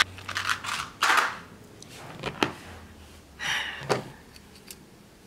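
Small clear plastic box of M8 steel hex nuts snapping open with a sharp click, then the nuts rattling in it and clinking as several are tipped out onto the table, in two rattling bursts with a few single clicks between.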